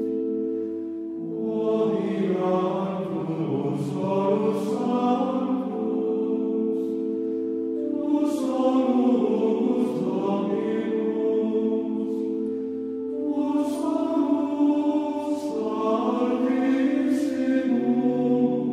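Choral music: a choir singing slow phrases over long held chords.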